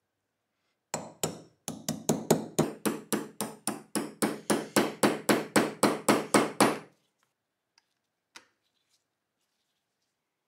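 Hammer striking a steel pin punch to drive a pin out of a rusted Tokarev TT-30 pistol slide. The strikes are a steady run of about twenty sharp metallic taps, roughly three a second, and they stop about seven seconds in. One lighter tap comes after them.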